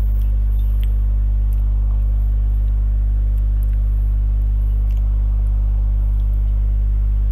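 Steady low hum, with a few faint clicks of a metal spoon against a glass bowl as someone eats sheer khurma.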